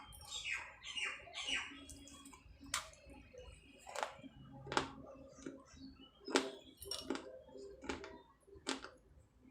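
Baked clay being bitten and chewed: a string of sharp, irregular crunches and cracks, about one every half second to a second, with some scraping crunches in the first second or so.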